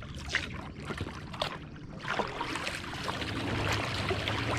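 Kayak paddle strokes: the blades dip and splash, water trickles and drips off them, and there are scattered small splashes against a steady low rumble.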